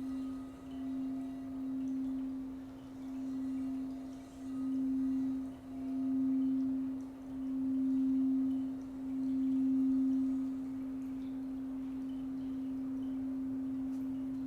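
Crystal singing bowl, the deepest-toned root chakra bowl of a seven-bowl set, sung by circling a mallet around its rim: one low steady hum that swells and fades every one and a half to two seconds and grows louder, then rings on evenly for the last few seconds.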